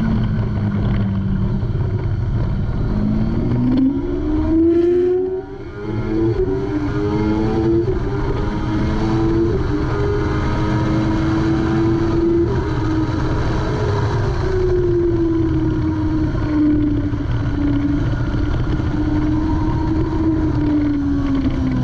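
Kawasaki ZX-6R 636's inline-four engine accelerating hard through the gears at full throttle, the pitch climbing and dropping back at each upshift, then falling away as the rider eases off, under heavy wind rush on the microphone.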